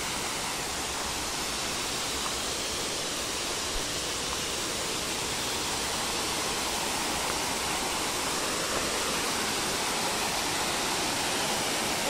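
Waterfall splashing down over rocks into a pool: a steady, unbroken rush of falling water that grows slightly louder toward the end.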